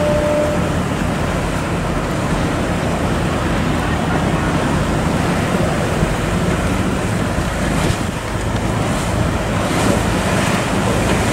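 Wind buffeting the microphone over rushing, churning water from boat wakes, with the low steady drone of boat engines underneath.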